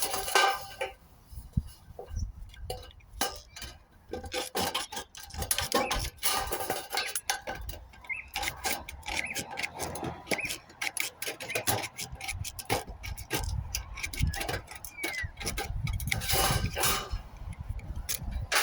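Colorbond sheet-steel tray being cut with snips and handled: irregular metallic clicks, crunches and short scrapes.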